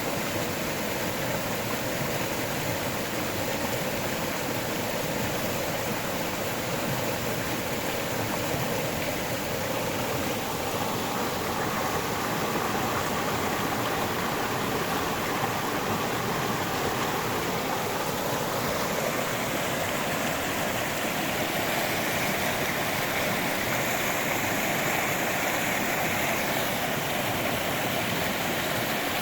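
River water flowing and burbling over rocks, a steady rush without pause.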